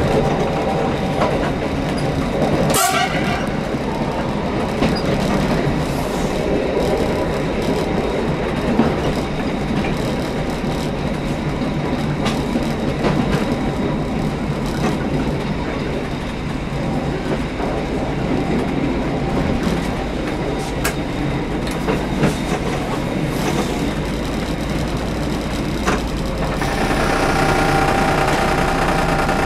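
A Mariazellerbahn narrow-gauge train running along the line: a steady rumble of wheels on track, with a single clank about three seconds in. A higher pitched whine joins in for the last few seconds.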